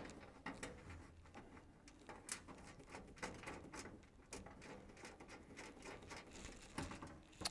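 Faint, scattered light metal clicks and taps of bolts and washers being handled and started by hand in an aluminium seat pan.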